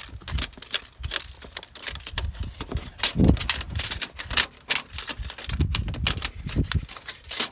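Tape measure blade scraping and clicking irregularly inside a high-efficiency furnace's intake pipe, knocking loose the packed snow that blocked it and tripped the furnace's safety shutoff.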